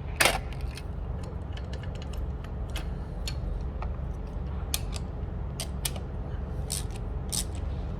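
Scattered light metallic clicks and taps of a spark plug socket wrench as a new spark plug is fitted and snugged into the engine, over a steady low hum.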